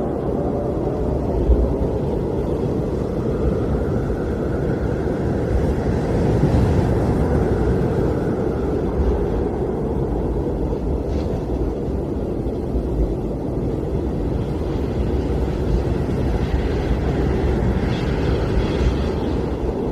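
Blizzard wind blowing hard and steadily with a deep rumble, gusts swelling and easing a few seconds in and again near the end.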